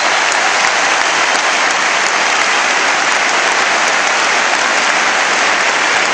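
Large arena crowd applauding, a dense, even clapping that holds steady throughout.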